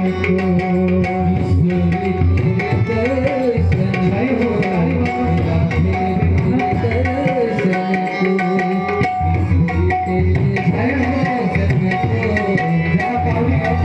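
Devotional bhajan music between sung lines: tabla playing a steady rhythm under held notes and a wavering melody.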